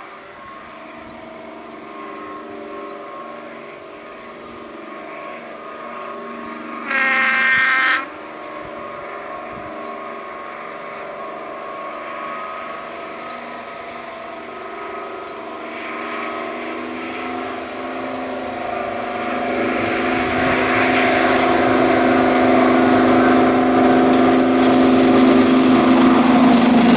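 Diesel locomotive working under power as it approaches, its engine note growing steadily louder until it passes close by. One horn blast, about a second long, sounds about seven seconds in.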